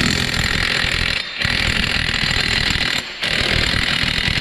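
Impact wrench running the front axle nut back onto the hub in three bursts of about a second and a half each, with brief pauses between.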